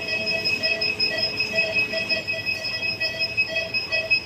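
Background music: a steady electronic bed of several held tones, with one mid note pulsing about three times a second.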